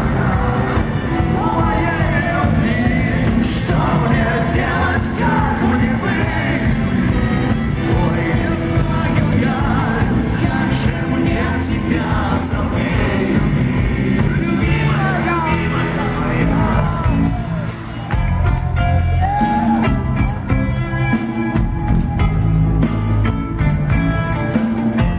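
Rock band playing live, with a singer over guitars and drums.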